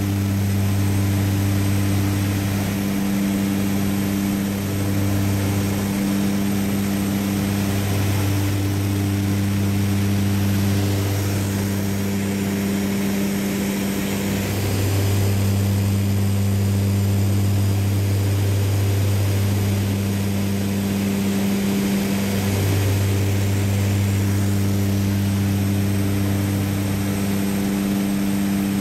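Light propeller aircraft's engine droning steadily, heard inside the cabin, its low hum swelling and fading slowly every few seconds.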